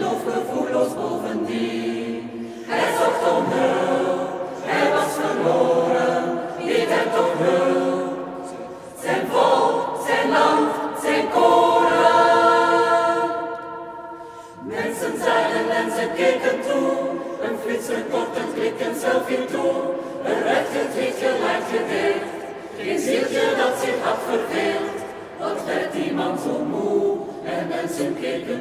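Mixed choir of women's and men's voices singing unaccompanied in a church. About halfway a long chord is held and dies away, then the singing starts again.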